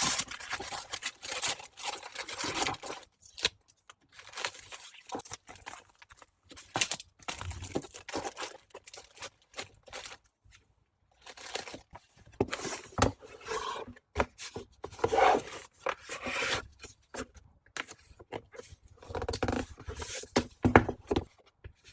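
Packaging materials being handled and packed: irregular bursts of scraping, crinkling and tearing, with a brief pause around the middle.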